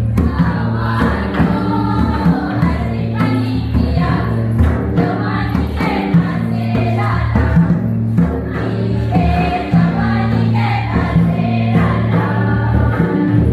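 Music with a group of voices singing together over a steady low bass and a regular beat of percussion strikes, typical of a karam festival song.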